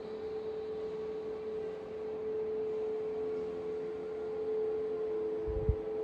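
Meditation background drone: a steady held pure tone with fainter tones beneath it, a second lower tone coming in about five seconds in. A brief low thump near the end.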